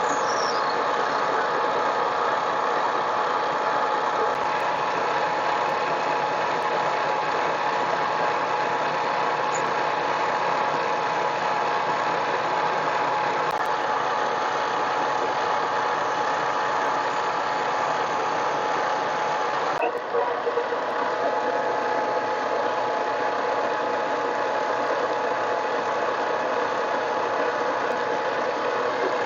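Harbor Freight mini lathe running steadily, its motor and gearing giving an even whine with a few constant tones over a broad hiss.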